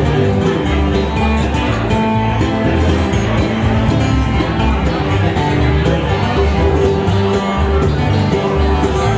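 A live bluegrass band playing: upright bass, mandolin, acoustic guitar and five-string banjo picking together over a walking bass line.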